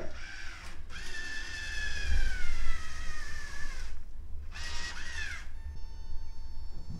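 Xiaomi Townew T1 self-sealing trash can running its automatic bag-sealing cycle: its internal motor whines for about three seconds, slowly dropping in pitch, stops briefly, then whines again for about a second, followed by a faint steady high tone.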